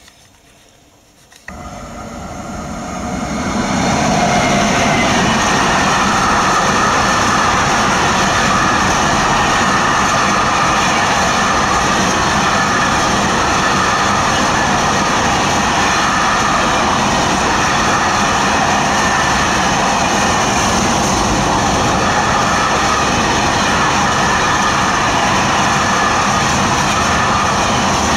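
Freight train of hopper wagons passing close by: the noise builds quickly over the first few seconds as it arrives, then holds as a loud, steady rolling of the wagons' wheels on the rails.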